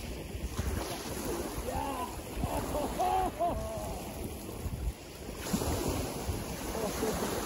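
Small sea waves washing onto a pebble beach, with wind rushing over the microphone.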